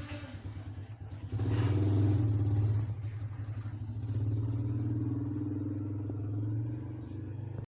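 An engine running with a steady low, fast-pulsing hum that gets louder about a second and a half in.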